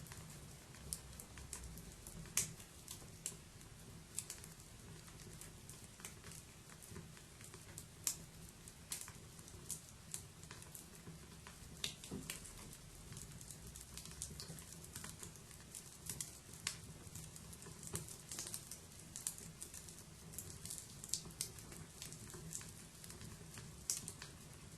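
Wood fire burning: irregular sharp crackles and pops, several a second, over a steady low rumble of the flames.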